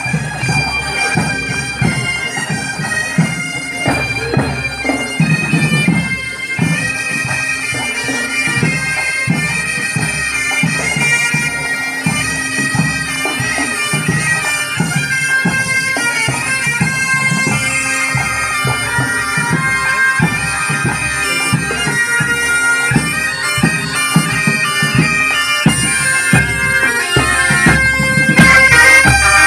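Breton bagad (pipe band) marching and playing: bombardes and bagpipes carrying the tune over steady bagpipe drones, with snare drums keeping the beat. It grows louder near the end as the band comes close.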